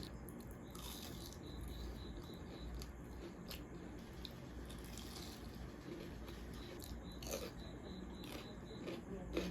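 A person eating Maggi instant noodles with fries and chips: scattered short, crisp bites and chewing, a little busier near the end, over a low steady hum.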